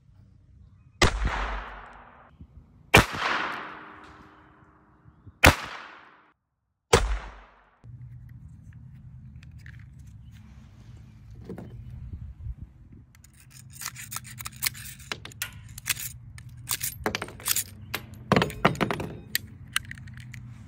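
Mossberg Brownie four-barrel .22 LR pistol fired four times, a second and a half to two and a half seconds apart, each sharp crack trailing off in a long echo. Then a run of quick metallic clicks and scrapes as the pistol is broken open and handled, over a low steady hum.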